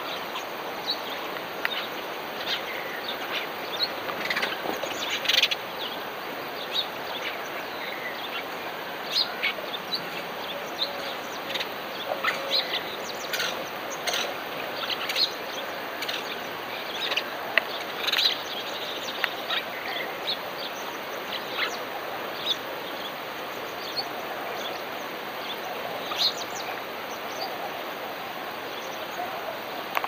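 Many short bird chirps and calls, scattered irregularly, over a steady background hiss.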